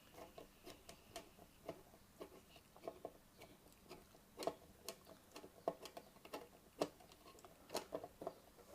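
Faint, irregular small clicks and taps of a screw being driven by hand to fasten the handpiece holder onto a hot air rework station, with parts being handled.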